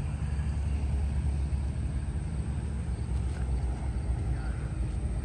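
Electric Polaris Ranger utility vehicle driving on a gravel course: a steady low rumble from its tyres rolling over rocks, with no engine sound.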